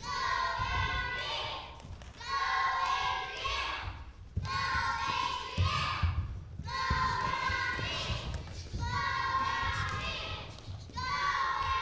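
High-pitched voices calling out in repeated bursts about every one and a half to two seconds, over scattered dull thuds of gloved sparring and footwork on a stage floor.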